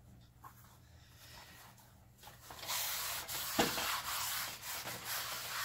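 Wad of paper towels rubbed across the oiled surface of a Lodge cast iron wok, a scrubbing hiss that starts about halfway through, with a single knock a second later. The excess oil is being wiped off after seasoning.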